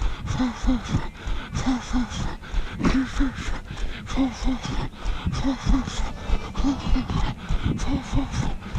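A runner's heavy breathing while jogging: two short voiced huffs in quick succession, repeating about every second and a quarter in time with his stride, over steady footfalls at about three a second.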